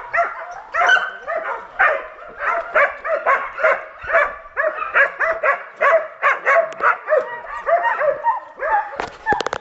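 Hunting dog baying at wild boar: a fast, steady run of high yelping barks, about three a second. A few sharp clicks come near the end.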